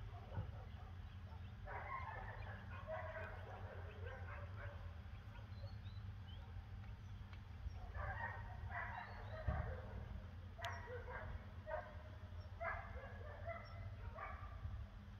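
Faint animal calls in two runs of repeated short calls, the first about two seconds in and the second from about eight seconds in, over a low steady hum, with one sharp click about eleven seconds in.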